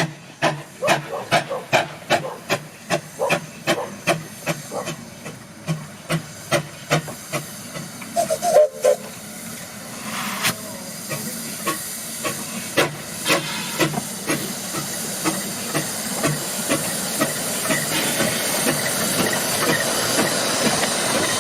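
Narrow-gauge steam locomotive working, its exhaust beating in a steady rhythm of about two to three chuffs a second. A hiss of steam builds up steadily over the second half.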